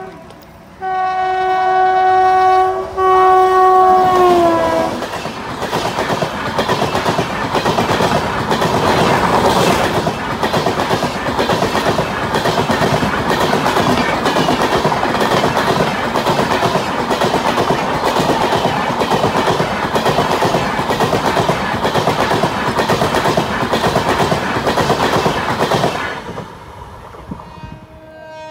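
Indian Railways express train passing close by: the locomotive's multi-tone horn sounds loudly, with a short break, and drops in pitch as the engine goes past about four to five seconds in. Then the coaches clatter past quickly with a steady rhythmic clickety-clack of wheels over the rail joints for about twenty seconds before fading.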